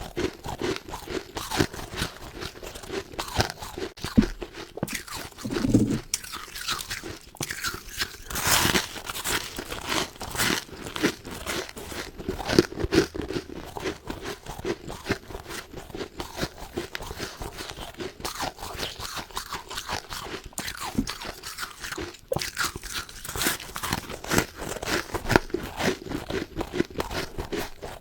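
Close-up biting and chewing of freezer frost, with rapid, irregular crunching throughout.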